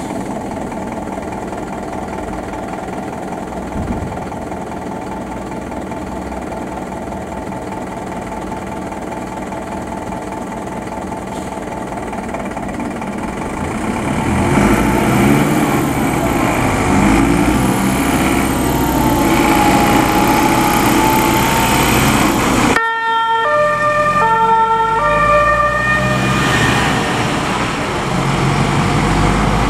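Fire engines' engines running as they pull out of the station, growing louder about halfway through as a truck drives off. Then a two-tone emergency siren (German Martinshorn) alternates between two pitches about once a second.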